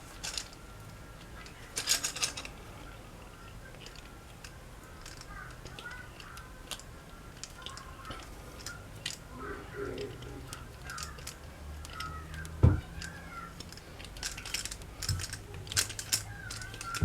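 Scattered clicks and light knocks of metal tools and parts being handled, with one sharp knock about two-thirds of the way through, over a faint low hum.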